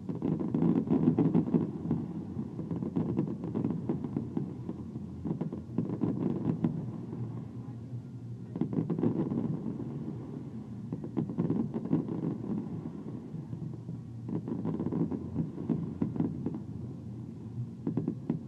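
Fireworks going off: a continuous low rumble of bursts that swells and eases every few seconds, with many sharp crackling pops.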